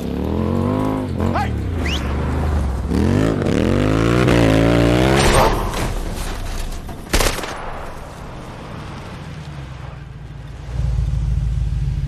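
SUV engines revving, the pitch swinging up and down and then climbing hard before dropping away. A single sharp bang about seven seconds in. Near the end, a Land Rover Defender's engine sets in with a low, steady rumble.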